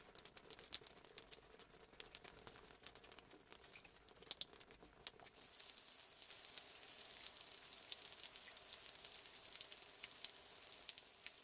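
Faint patter of rain and dripping water: scattered sharp ticks of drops for about the first five seconds, then a steady soft hiss.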